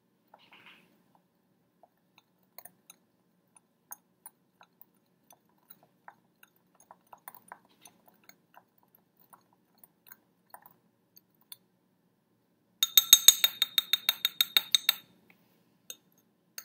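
Plastic knife stirring sugar in vegetable oil in a glass beaker, at first a sparse patter of faint ticks against the glass. Near the end come about two seconds of rapid, ringing clinks, roughly seven a second, as the knife knocks quickly against the beaker wall.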